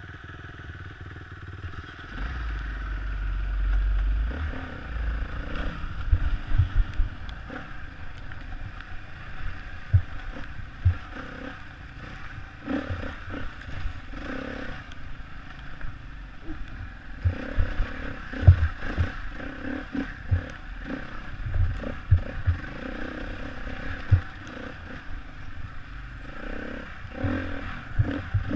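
Enduro motorcycle engine idling, then pulling away about two seconds in and being ridden over a rough, rocky trail. The engine runs throughout, with frequent sharp knocks and clatter as the bike hits rocks and bumps.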